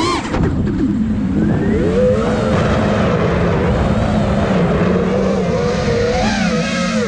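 Nazgul Evoque 5 FPV quadcopter's brushless motors and propellers whining, their pitch gliding up and down with the throttle as it turns, over a steady lower hum.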